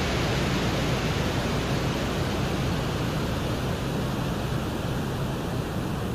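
Steady rushing noise with a deep rumble underneath, easing slightly toward the end. It is presented as the Venera 14 lander's microphone recording of wind in Venus's dense carbon dioxide atmosphere.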